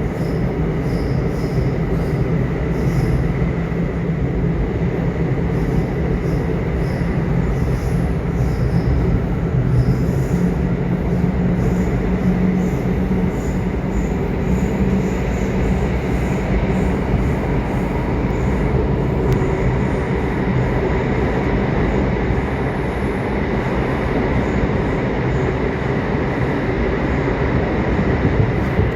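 Subway train riding along: a steady rumble of wheels on rails with a faint steady high tone.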